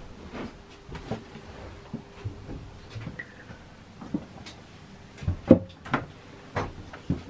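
Irregular knocks and thumps of handling and movement in a small wood-fitted boat cabin, the loudest a little after five seconds in, with a brief faint squeak about three seconds in.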